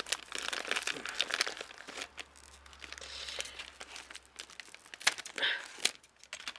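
Crinkling and rustling of dry craft moss and foliage trimmings being handled and pulled apart, with a few sharp clicks near the end.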